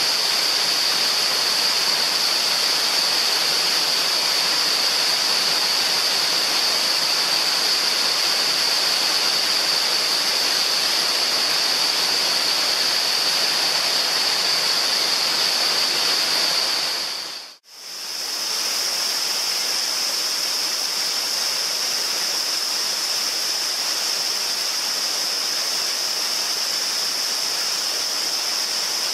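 Waterfall rushing steadily, with a steady high-pitched hiss-like tone on top. The sound fades out and back in about two-thirds of the way through, the high tone slightly higher afterwards.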